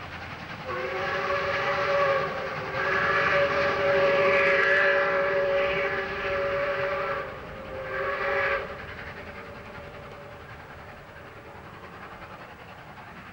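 Steam whistle of ex-South Australian Railways 4-8-4 locomotive 520 sounding a chord of several notes in a run of blasts, the longest held for a few seconds, stopping about nine seconds in; the train's running noise carries on faintly after it.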